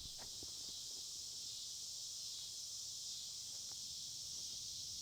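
Steady high-pitched chorus of night insects chirping, with a few faint ticks.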